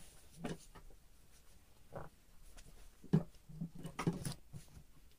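A few light knocks and rustles of handling at a sewing table, with a small cluster near the end; the sewing machine is not running.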